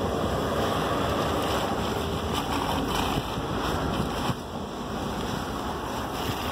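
Wind buffeting the microphone: a steady rushing noise that eases slightly a little after four seconds in.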